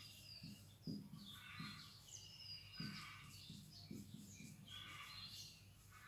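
Marker pen on a whiteboard, faint squeaks and strokes as letters are written, several short squeaks over the few seconds.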